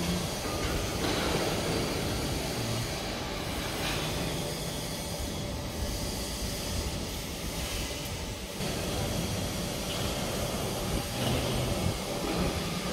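CNC grinding machine for UC bearing inner rings running: a steady mechanical rumble with hiss, and a few light knocks over it.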